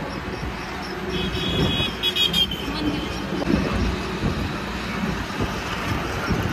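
City road traffic heard from a moving vehicle: steady engine and road noise, with a vehicle horn sounding briefly a couple of times between about one and two and a half seconds in.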